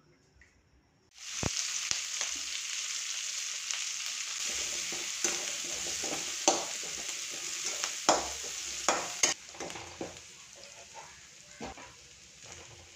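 Chopped onions sizzling in hot oil in an aluminium kadai. A metal spatula scrapes and clicks against the pan as they are stirred. The sizzle starts about a second in and drops quieter after about nine seconds.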